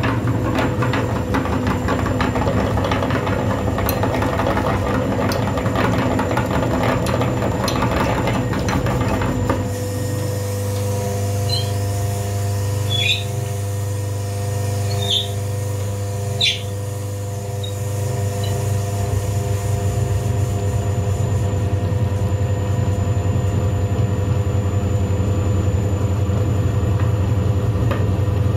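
A small motor running with a steady hum, with rapid clicking for the first ten seconds or so and a few brief high squeaks in the middle.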